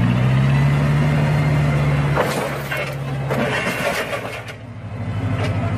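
Propane-powered Clark forklift engine running steadily, with a few knocks and clatter in the middle as a bundle of lumber is set down off the forks. Near the end the engine settles into a low, pulsing idle.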